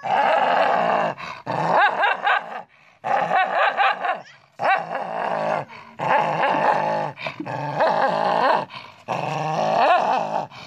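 A dog vocalizing in a run of about seven drawn-out calls, each a second or so long with a wavering, gliding pitch, separated by short gaps.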